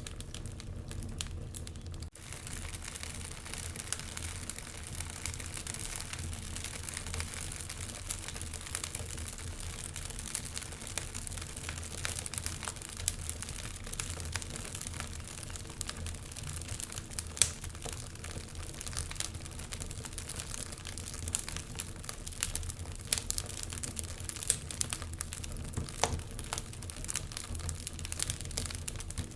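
Wood fire crackling in a fireplace: an irregular run of sharp pops and snaps over a steady hiss and low hum. There is a brief break about two seconds in and one louder pop midway.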